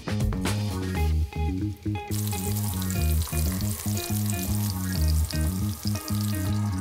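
Zucchini slices frying in hot olive oil in a pan, a steady sizzle that sets in about two seconds in, over background music.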